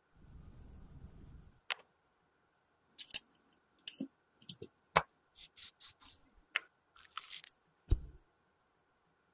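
Plastic lipstick mold and metal lipstick tube being handled: a soft rush at the start, then a string of sharp clicks, taps and short scrapes as the mold is worked and the lipstick is pushed out, with one heavier knock near the end.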